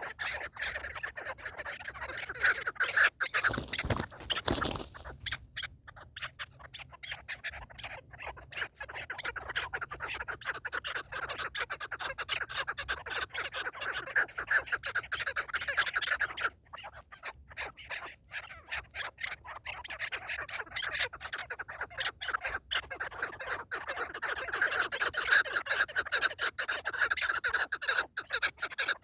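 Partridges calling in a rapid, continuous chattering cackle that pauses briefly twice. A short burst of noise cuts across the calls about four seconds in.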